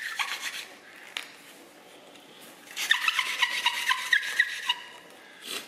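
Wooden hand-drill spindle twirled between the palms against a wooden hearth board in a friction fire-starting attempt, squeaking in rapid runs: one fading out about half a second in, another from about three seconds in to nearly five.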